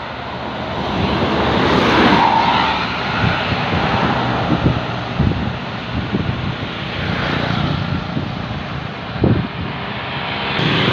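A bus climbing the hill under load, its engine noise swelling as it passes and loudest about two seconds in, with a few short knocks along the way.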